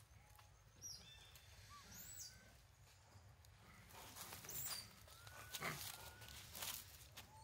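Faint outdoor ambience: a few short, high whistling calls and some brief soft rustles and clicks, loudest a little past halfway.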